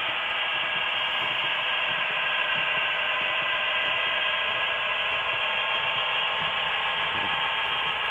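HO-scale model diesel locomotives running on the track: a steady whir of electric motors and gearing with wheel noise, even throughout.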